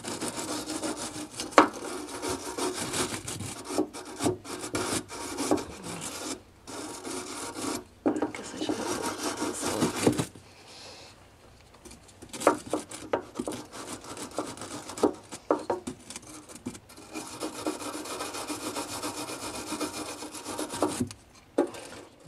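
Wire brush scrubbing the threads of a metal kitchen sink drain strainer to clean them, in spells of steady scratchy strokes several seconds long with short pauses. A few sharp knocks as the brush strikes the metal, the loudest about a second and a half in.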